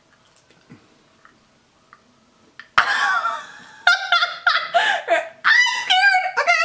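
A woman laughing: a quiet stretch for about the first three seconds, then a sudden burst of laughter that goes on in short, repeated bursts.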